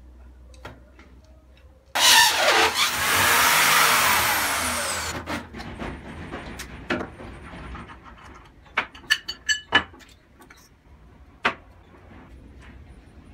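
A cordless drill in a drill-press stand running fast, starting suddenly about two seconds in, then its whine falling as it spins down over about three seconds. Later come a handful of sharp clicks and knocks of wooden parts and tools being handled.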